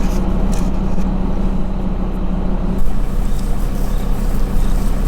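A car driving along, its engine running as a steady low drone with road noise; the drone shifts about three seconds in.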